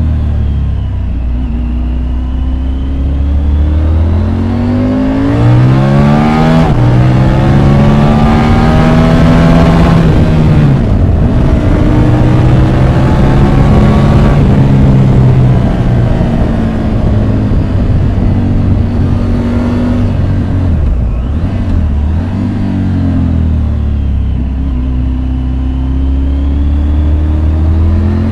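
Triumph Tiger 850 Sport's inline three-cylinder engine under hard riding. It eases off at first, then pulls with rising pitch and a brief break about six and a half seconds in, like a gearshift. It drops back around eleven seconds, pulls again, falls to a lower steady run, and picks up once more near the end.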